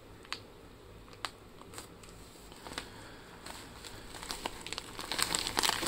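Clear plastic bag of crumbly dehydrated dog food crinkling as it is handled and squeezed: a few separate crackles at first, then denser crinkling that grows busier near the end.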